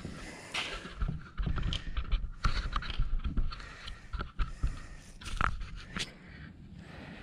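Camera being carried and set down: irregular rubbing, scraping and knocks close to the microphone as hands and a hoodie sleeve brush against it, with one sharper knock about five seconds in before it settles.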